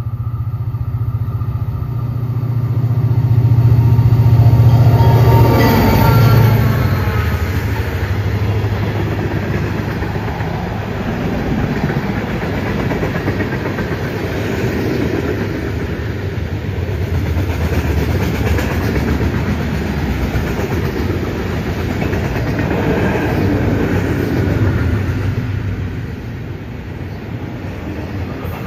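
Freight train passing at speed: the diesel locomotives rumble up and go by about five seconds in, their sound dropping in pitch as they pass. Then the steady rumble and wheel clatter of tank cars and intermodal cars rolling by on the rails.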